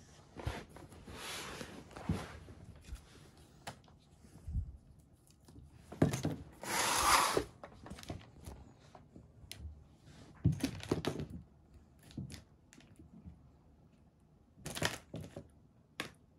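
Cats scuffling and play-fighting on a rug: a string of short rustles and taps, the loudest a rustling burst of about a second near the middle.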